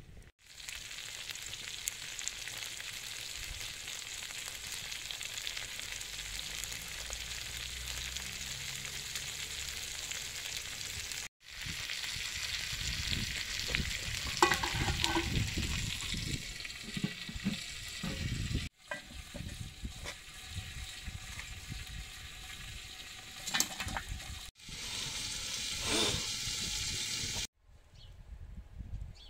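Stuffed eggplant halves sizzling in oil on a wide steel pan over a wood fire, a steady hiss heard in several short cuts. A few metal clinks sound about halfway through.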